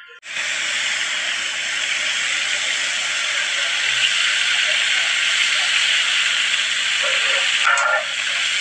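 Food sizzling steadily as it fries in a large pan divided into hexagonal compartments, a loud even hiss that cuts in sharply just after the start, with a brief change near the end.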